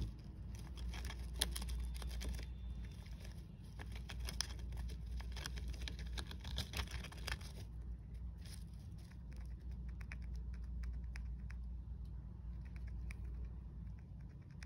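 Hamster in wood-shaving bedding making a rapid crackle of small clicks and rustles, dense for the first half and sparser from about eight seconds in, over a low steady hum.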